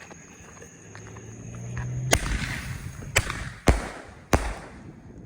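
Aerial firework ball shells going off: a loud bang about two seconds in, followed by three sharp pops over the next two seconds.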